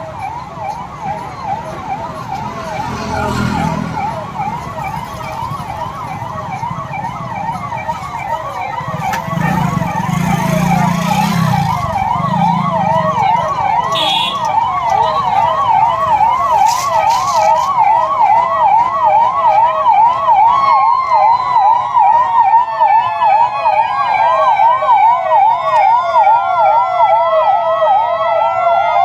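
Police vehicle sirens sounding a fast up-and-down yelp, several cycles a second, growing louder. About two-thirds in, a second siren joins with a slow falling wail.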